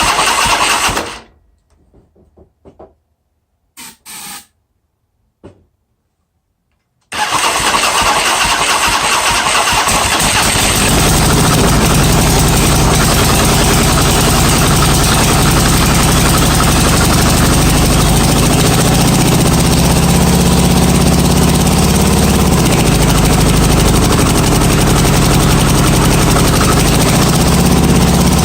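Harley-Davidson 1340 Evolution V-twin in a 1995 Electra Glide, on its first start after a rebuild. A short burst of cranking stops about a second in, and after a pause of several seconds it cranks again at about 7 s. The engine catches and from about 11 s settles into a steady idle.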